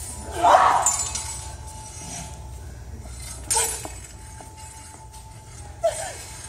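Swords and round shields clashing in a staged fight: a few sharp clanks with a ringing tail, the loudest about half a second in and others about three and a half seconds in and near the end.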